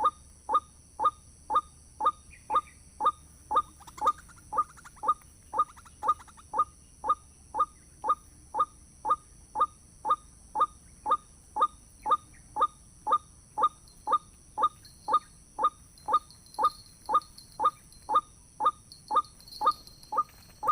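White-breasted waterhen's ruak-ruak call, a short note repeated about twice a second with machine-like regularity. It is typical of the call played to lure waterhens into a trap.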